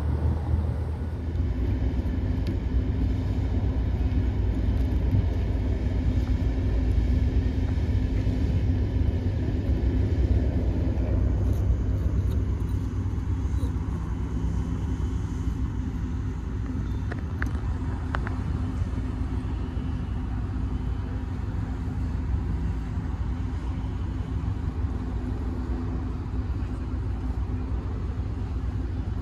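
A vehicle engine running steadily: a constant low rumble with a steady hum above it.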